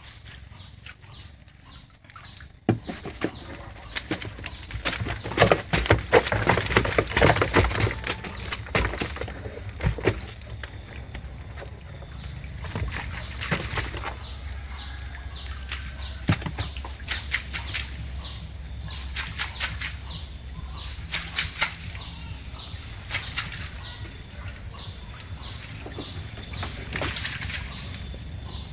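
Water splashing and dripping as a wet net fish trap is hauled from the canal and shaken out over a foam box, with small fish and shrimp flapping and rattling in the net and box; loudest about 3 to 10 seconds in. Behind it, a faint high chirp repeats about twice a second.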